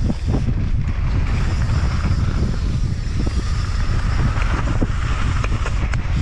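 Mountain bike descending fast on a loose, dry dirt trail: a steady rumble of tyres and wind buffeting the microphone, with scattered small clicks and rattles from the bike.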